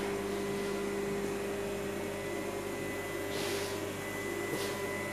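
Dynamic balancing machine spinning a Toyota 1JZ flywheel at a steady speed, a steady hum with a faint whine. This is the final check run after the heavy spot was drilled out.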